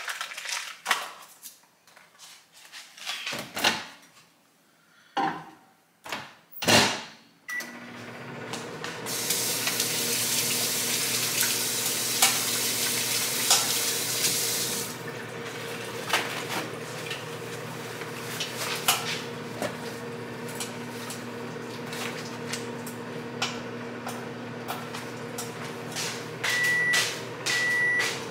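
A few clicks and knocks of kitchen handling, then a microwave oven starts and runs with a steady hum to melt an ingredient. A tap runs for several seconds over the hum, and short high beeps repeat near the end.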